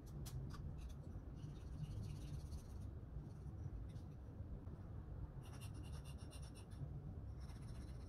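A small metal hand tool scraping the rough edges of a plaster of Paris casting: a few light clicks at the start, then short spells of fine scratching, over a faint low hum.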